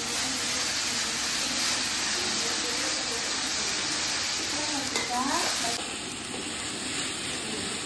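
A dark mixture sizzling as it fries in a black kadai on a gas burner, while a metal spatula stirs and scrapes it around the pan.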